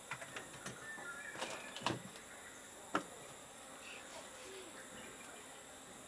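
Steady high-pitched insect chorus, with a few small clicks and knocks over it, the sharpest about two and three seconds in.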